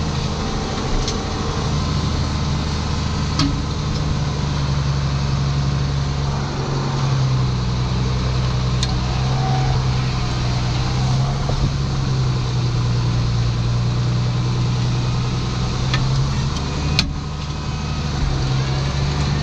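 Ford TW tractor's six-cylinder diesel engine running steadily at working revs while ploughing, with a short dip in the engine note near the end.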